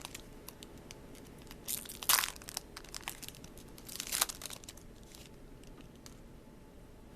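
Magic: The Gathering cards and booster-pack wrappers being handled: crinkling and rustling with light clicks, with two louder crinkling bursts about two and four seconds in.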